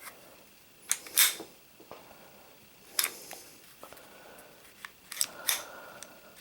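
Sig Sauer Mosquito .22 pistol being handled while it is unloaded: a few sharp metallic clicks and short sliding scrapes of the magazine and parts. The loudest comes about a second in, and others follow around three and five seconds in.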